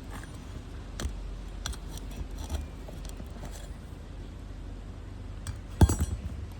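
Scattered light metallic clicks and clinks of hand tools working on a roof shingle, with a louder cluster of knocks near the end.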